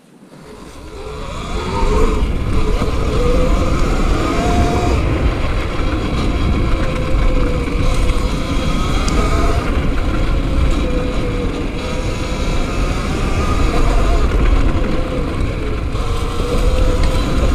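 E Ride Pro SS electric motorbike pulling away and riding a trail: the motor's whine wavers in pitch with speed over heavy wind buffeting and trail rumble on the mounted camera's microphone. The sound builds up over the first two seconds, then holds steady.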